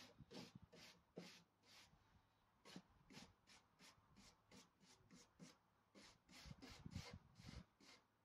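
Faint scratchy strokes of a hand brush scrubbing along a scorched wooden board, about three a second, pausing briefly twice.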